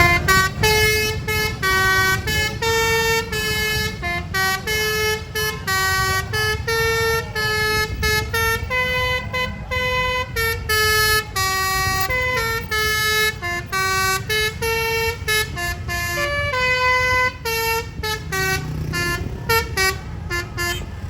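Basuri telolet multi-tone air horn on a Tunggal Jaya bus playing a tune, one short note after another, over the low rumble of the passing bus.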